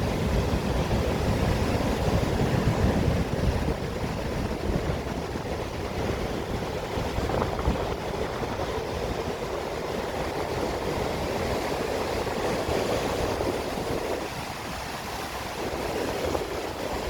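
Sea waves washing and surging, a continuous rushing noise that rises and falls, with a heavier low rumble in the first few seconds.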